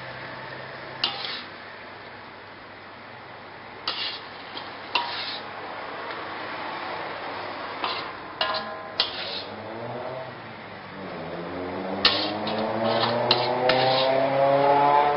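Metal ladle scraping and clinking against a wok as food is scooped out: single sharp clinks every few seconds, then several in quick succession near the end. In the last few seconds a low hum rises steadily in pitch and grows louder.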